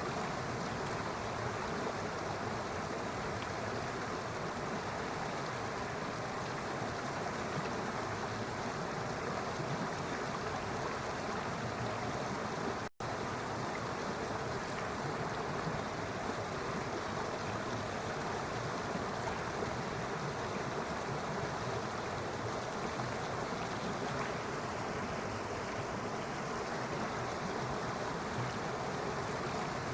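Running water of a stream flowing steadily, an even rushing with no rhythm, broken by a split-second gap near the middle.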